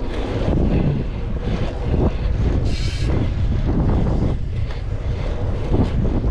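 Wind buffeting the microphone: a steady, loud low rumble with irregular gusts and no clear tone.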